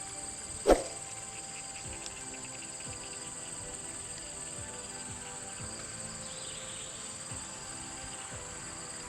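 Insects droning steadily at a high pitch, with one sharp thump about two-thirds of a second in.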